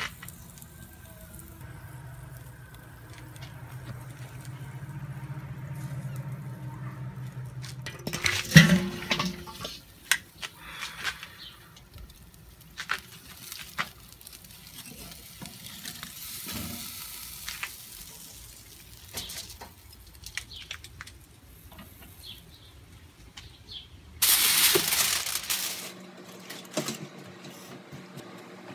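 Beef roast sizzling on a charcoal kettle grill, with steel tongs clicking and clinking against the grate and meat. There is a loud clank about eight seconds in and a short burst of loud hissing noise near the end.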